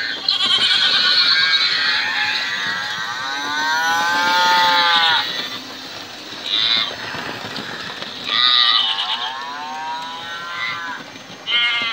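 Recorded farm-animal calls from sound units in model railway wagons: cattle mooing and sheep and goats bleating, overlapping one another. Long, arching calls come about four seconds in and again around nine seconds, with shorter quavering bleats between.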